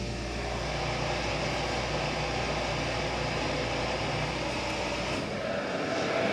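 Delta elevator hoist machinery running as a car travels: a steady low motor hum under a broad rushing whir. About five seconds in the low hum drops away while the whir grows slightly louder.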